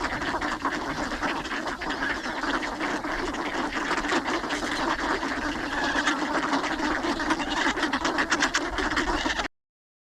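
A crowd of ducks quacking at close range, a continuous jumble of calls with many short sharp clicks and taps mixed in. It cuts off abruptly near the end.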